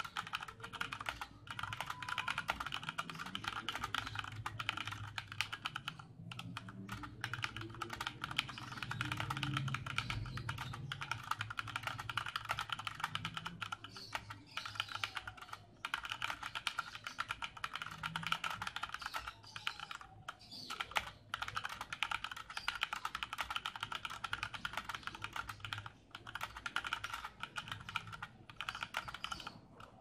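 Fast, continuous typing on a Rantopad MXX tenkeyless mechanical keyboard with tactile Cherry MX Brown switches: a rapid stream of keystroke clacks with a few brief pauses between bursts.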